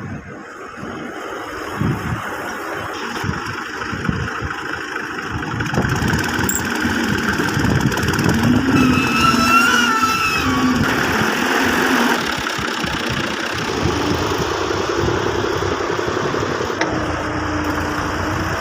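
Heavy engine running under load and growing louder over the first half, with a whine that rises and falls for a few seconds near the middle.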